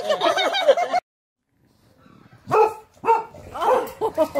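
A dog barking and yipping in several short, separate barks, starting after a brief cut to silence.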